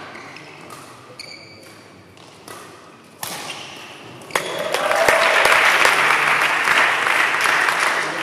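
Badminton rally: sharp racket hits on the shuttlecock and squeaks of shoes on the court floor. From about five seconds in, spectators applaud and cheer as the rally ends, which is the loudest sound.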